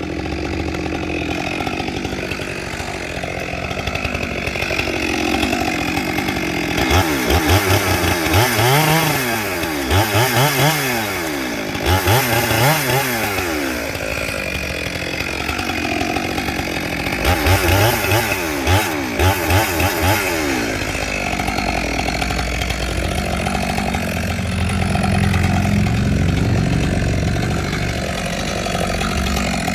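Stihl 462 two-stroke chainsaw running, its pitch rising and falling again and again in two spells, then holding steadier near the end.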